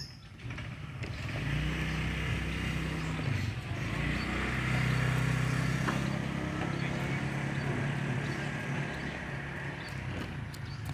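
A motor vehicle's engine running nearby, a steady low engine note that grows louder over the first few seconds and slowly fades toward the end.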